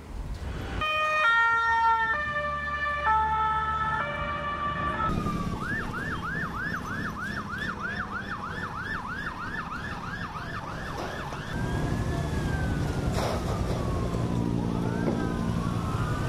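Emergency vehicle sirens. For the first few seconds a siren steps between fixed tones, then about five seconds in it switches to a fast yelp of about three rising sweeps a second. From about eleven seconds several wailing sirens rise and fall across each other over a low rumble.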